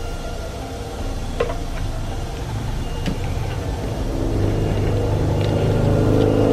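A steady low mechanical hum, like a car running, that grows louder over the last couple of seconds, with a few light clicks.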